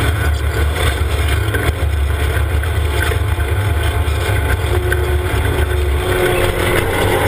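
UTV driving along a rough dirt trail: its engine running steadily under wind buffeting the microphone. The low rumble eases about six seconds in.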